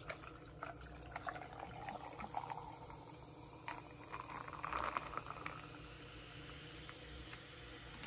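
A drink being poured into a glass, the pour gurgling and rising in pitch as the glass fills, with a few faint clicks.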